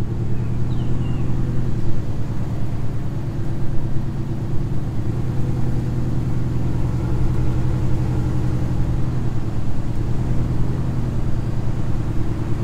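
Lifted second-generation Dodge Ram 1500 pickup's engine and exhaust running steadily at low cruising speed: a low, fast-pulsing drone.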